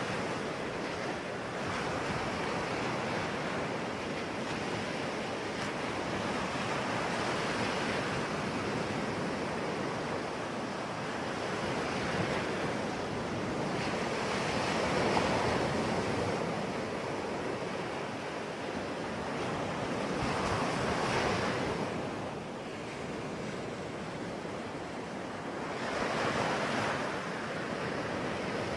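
Ocean waves breaking and washing on the shore in a continuous rush, with swells rising and falling every several seconds.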